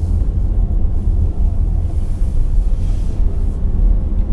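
Steady low rumble of a car cabin on the move: road and engine noise.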